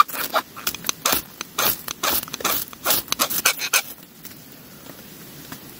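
A quick run of short scraping and rubbing strokes, about three a second, that stops about four seconds in.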